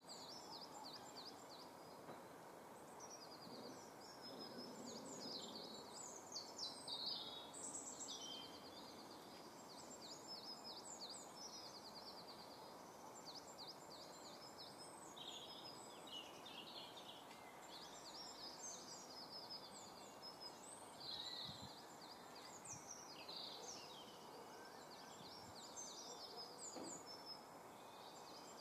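Faint songbirds singing and chirping: many short chirps and fast trills overlapping throughout, over a steady background hiss of outdoor noise.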